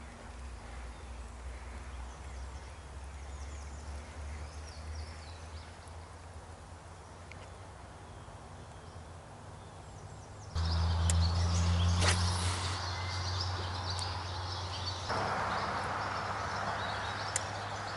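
Outdoor ambience: faint bird chirps over a low rumble. About ten seconds in it turns abruptly louder, with a steady rumble and hiss.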